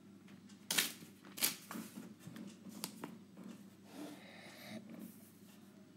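A few light taps and clicks, the loudest about one and one and a half seconds in, then a brief soft scrape around four seconds in: handling noise of the writing surface while the notes change to a blank page.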